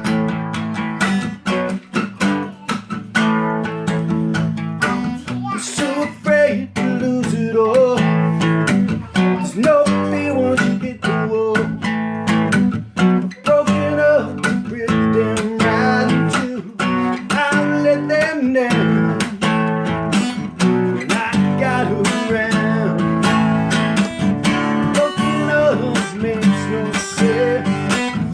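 Acoustic guitar strummed steadily in an instrumental passage of an unplugged song, with a picked melody line over the chords.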